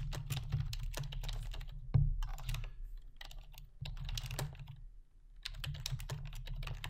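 Typing on a computer keyboard: quick runs of key clicks, with a brief pause a little past halfway, over a low steady hum.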